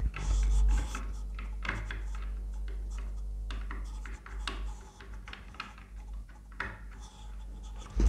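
Small clicks, scratches and rubbing as a ribbon-cable connector is handled and pushed into the socket on the back of a 3D printer's LCD display, with music playing behind.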